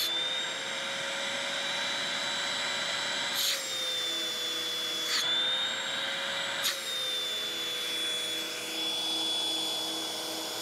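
Hoover WindTunnel Tempo upright vacuum's motor running with a high whine during a suction test through a PVC gauge rig. The pitch shifts down, up and down again as the rig's opening is unsealed and sealed by hand, with a soft thump at each change, about 3.5, 5 and 6.5 seconds in.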